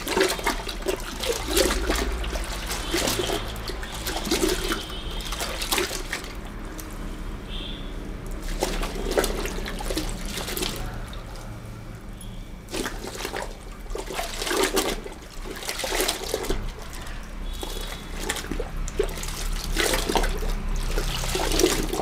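Cloth floor mats being dunked and pressed by hand into a plastic bucket of soapy detergent water: irregular splashing and sloshing in bursts, with a few short pauses.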